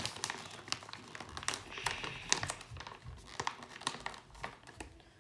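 Packaging pouch crinkling and crackling with irregular small clicks as hands pick at its seal, trying to open it without tearing it.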